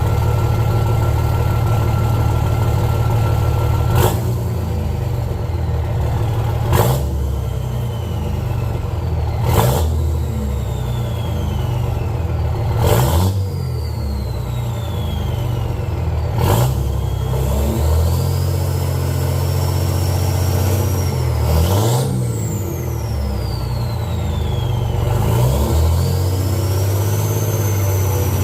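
5.9 Cummins diesel engine running with a high turbo whistle. After each of several sharp clicks in the first half, the whistle falls away. Later it twice rises under load and then falls off.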